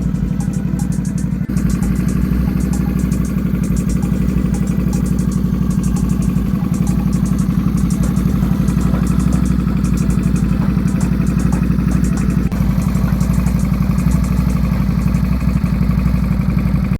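Honda Shadow 400 V-twin engine running steadily through an aftermarket Screamin' Eagle II muffler: an even, low pulsing exhaust beat.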